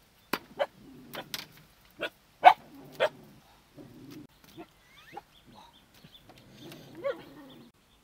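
Machete chopping raw chicken on a wooden chopping block: a run of sharp, irregular chops, thickest in the first three seconds and fewer after. A short animal call comes near the end.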